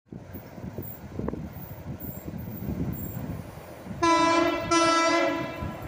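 Horn of an approaching MLW diesel locomotive sounding two blasts of one steady tone about four seconds in, the second longer than the first, over low background rumble.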